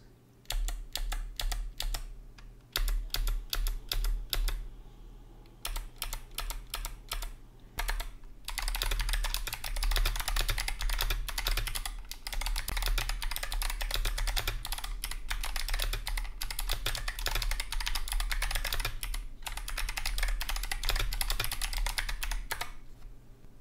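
Kailh Box Jade clicky switches on a brass plate in a wooden case with MT3 keycaps, with a sharp click that does not rattle. For the first eight seconds or so the stabilized keys are pressed one at a time in short runs; after that comes fast, steady typing with both hands, ending just before the close.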